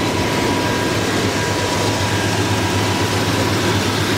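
GM 350 crate V8 with a mild performance cam, headers and dual exhaust, idling steadily.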